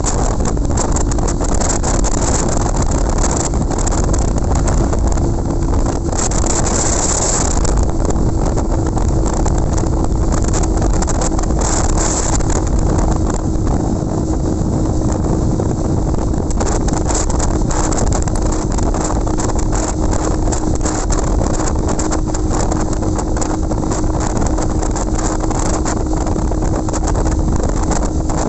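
Motorcycle riding at steady highway speed: wind buffeting the microphone over a constant engine note. The wind hiss swells briefly a couple of times.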